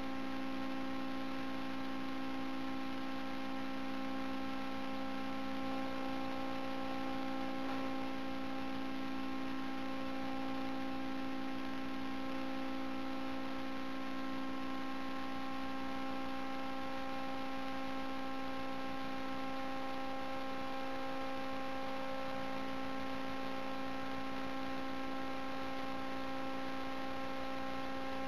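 A steady, unchanging machine hum: one pitched tone with a ladder of overtones over a light hiss.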